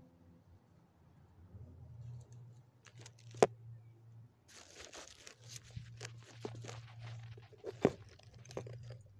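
Close rustling and crinkling that starts about three seconds in, with two sharp clicks, one soon after it starts and one near the end.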